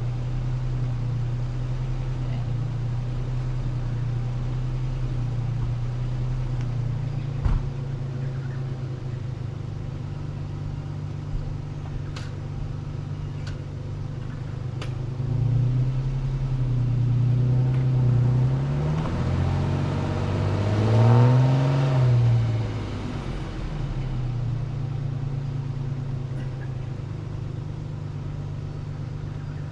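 Four-wheel-drive vehicle engine running steadily, then revving up and back down twice between about 15 and 23 seconds in. There is a single sharp knock about 7.5 seconds in.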